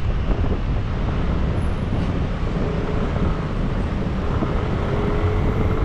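Steady rumble of a motorcycle under way, its engine mixed with wind noise on the microphone and the sound of surrounding traffic. From about halfway through, a faint engine tone rises slowly in pitch.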